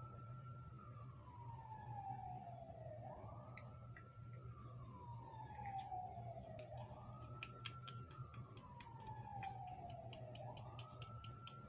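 A siren wailing: each cycle rises quickly, holds briefly at the top, then falls slowly, repeating about every three and a half seconds. A quick run of light clicks comes in the middle.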